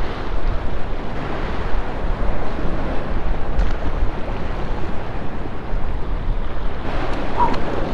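Wind buffeting the microphone over surf washing against the jetty: a steady noise with a low rumble.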